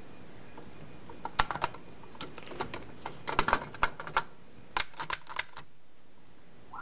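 Square D Size 4 motor starter's coil and magnet assembly being seated by hand in the starter frame: clusters of sharp clicks and knocks as the parts tap and settle, about a second and a half in, around three and a half seconds and again around five seconds.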